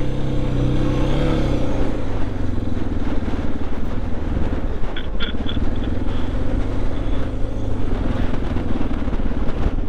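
Suzuki DR650's single-cylinder engine pulling a dual-sport motorcycle up a steep off-road slope under hard load. The revs drop about a second in, and the engine then labours on with an uneven, rough rumble.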